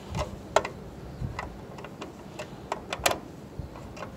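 Screwdriver turning the terminal screws of a plastic solar charge controller, backing them out to open the wire clamps: a string of irregular small clicks and ticks.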